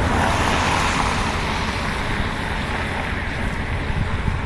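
Road traffic going by: a broad hiss of passing vehicles, loudest about a second in and fading slowly.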